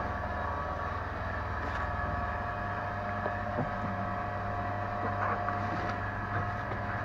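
A steady low droning hum with several steady tones over it, and a few faint ticks.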